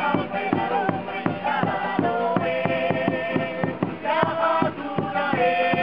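Polynesian dance music: group singing over a steady drumbeat of about three to four strokes a second.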